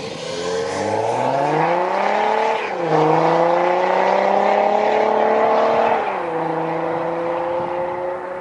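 Audi A4 B8 3.0 TDI V6 diesel with a BBM Motorsport aftermarket exhaust accelerating hard away. The engine note climbs in pitch, drops at an upshift about three seconds in and again at about six seconds, then climbs again.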